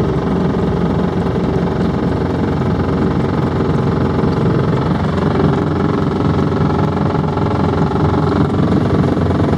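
A boat's motor running steadily while the boat is under way, with an even hum and no change in speed.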